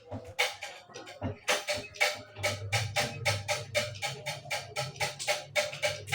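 Music with a fast, even percussive beat of sharp wooden-sounding knocks, about four a second, over a steady low hum.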